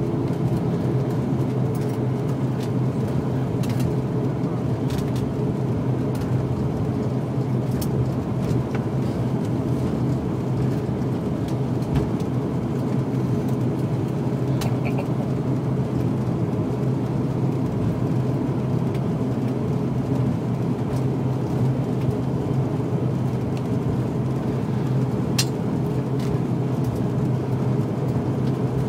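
ATR 72-500 turboprop engines with six-bladed propellers droning steadily in the passenger cabin while the aircraft taxis, a constant low propeller hum under the engine noise. A few faint clicks.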